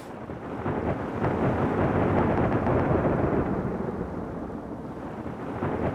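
Thunder sound effect from the Krotos Studio Genesis thunder preset: a long, deep rolling rumble that swells in over the first second or two, eases off about five seconds in, then builds again near the end.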